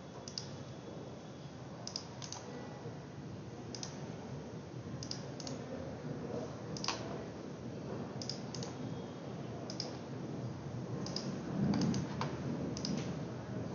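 Computer mouse clicks, single and in quick pairs, every second or two, as line points are placed in CAD drafting software, over a steady low background hum.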